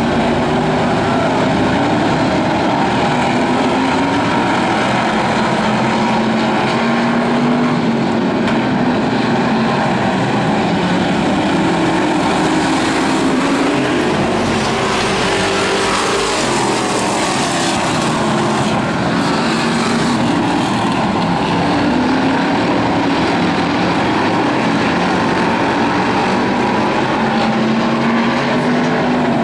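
A pack of hobby stock dirt-track race cars running at racing speed, several engines overlapping, their pitch rising and falling as they work through the turns. The sound swells about halfway through as cars pass close by.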